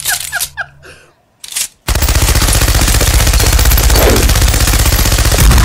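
Machine-gun sound effect firing one long rapid burst, starting about two seconds in after a few faint short blips.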